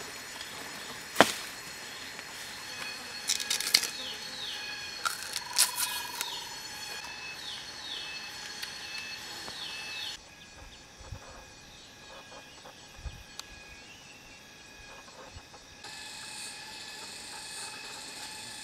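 Forest ambience: birds calling with short falling notes over the steady drone of insects, with several sharp cracks in the first six seconds, the loudest about a second in. About ten seconds in the sound drops quieter, leaving mostly the insect drone, and it picks up again near the end.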